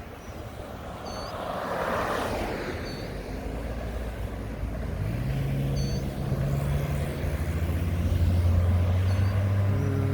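Diesel engine of a Mack front-loader garbage truck running, its low note growing louder from about halfway through as the truck draws near.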